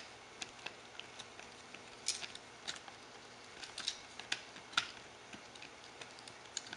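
Shiba Inu puppy gnawing a knotted rawhide bone: irregular small clicks and crunches of teeth on rawhide, a few louder ones in the middle.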